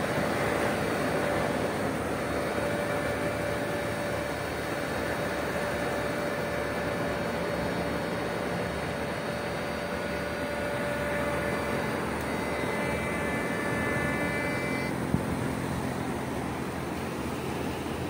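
Steady rushing wind and surf noise on the beach, with a faint steady whine that stops near the end and one brief knock just after it.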